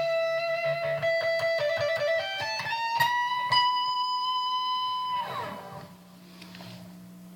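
Electric guitar played solo: a held high note under a run of quick notes, then a note slides up and rings on before fading out about five seconds in, leaving a faint low steady hum.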